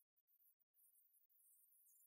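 Near silence: a faint hiss that drops out to dead silence several times in the first second.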